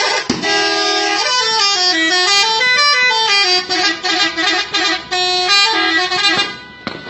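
Telolet musical bus horn playing a tune: a string of loud horn notes stepping up and down in pitch for about six seconds, then stopping.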